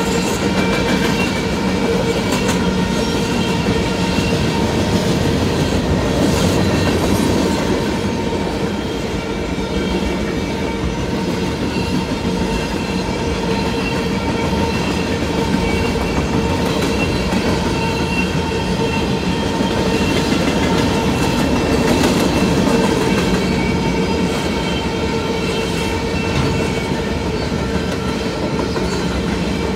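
Freight train cars rolling past close by: a steady loud rumble and clatter of steel wheels on the rails, with a few steady high squealing tones from the wheels over it.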